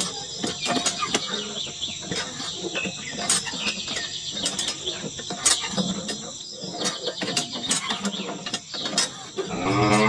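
Background of crickets and chirping birds, with many small clicks throughout. Near the end a cow starts a loud, long moo.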